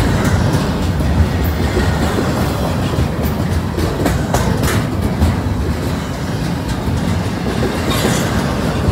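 Double-stack intermodal freight train passing close by: a steady rumble of steel wheels on the rails from the well cars, with irregular sharp clicks and clacks.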